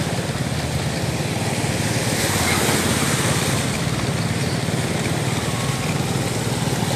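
Motor scooter engine running steadily while riding through shallow floodwater, with a steady rushing hiss of water spray and wind.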